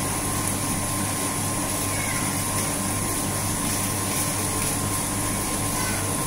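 Water pouring and splashing into live-fish tanks, bubbling steadily, over a constant low hum from the tank's pump.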